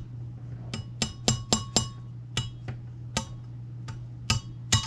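Small metal tools or parts clinking against each other, about a dozen sharp ringing clinks at uneven spacing, over a steady low hum.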